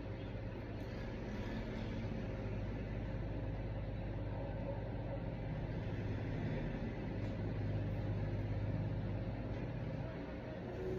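Steady low background rumble with a deep hum, swelling slightly in the middle of the stretch and easing again near the end.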